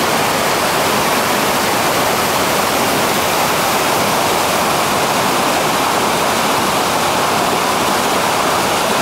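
Loud, steady rush of whitewater rapids, churning river water with no breaks.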